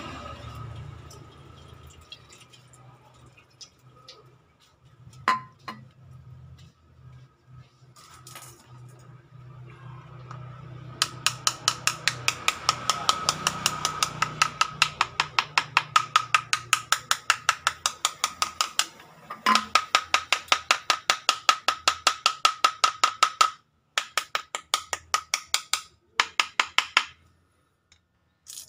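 Aerosol cleaner hissing as it is sprayed into a plastic fuel pump housing, in spurts. Through the middle and later part, a fast, even clicking, about five clicks a second, stops and starts several times.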